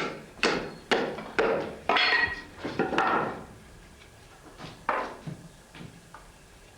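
Hand tool knocking on wood as a saddle-frame sideboard is worked by hand: a run of sharp knocks about two a second, then fainter, scattered taps after about four and a half seconds.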